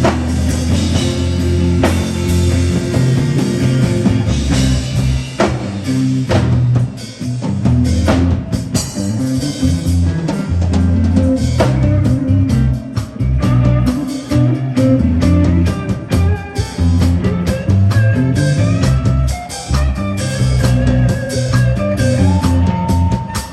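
Instrumental break of a gospel song: a band with drum kit, bass and guitar playing a steady groove, with no singing.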